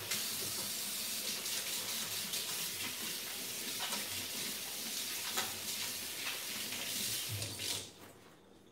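Kitchen tap running steadily, water splashing into the sink while hands are washed, then turned off sharply about eight seconds in.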